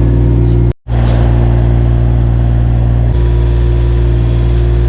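Engine of the lifting machine running steadily at a constant speed, with a deep, even hum. It drops out completely for an instant just under a second in, then carries on unchanged.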